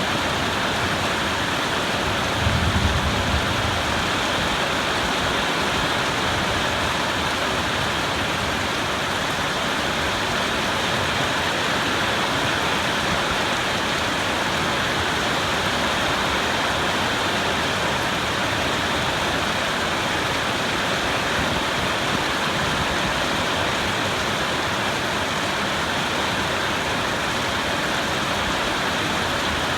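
Heavy rain falling steadily in a dense, even hiss, with a brief low rumble about three seconds in.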